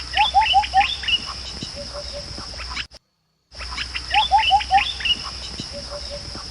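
A bird calling a quick series of four rising notes with higher chirps among them, over a steady high insect drone. The same three-second stretch plays twice with a brief silence between, as a looped recording does.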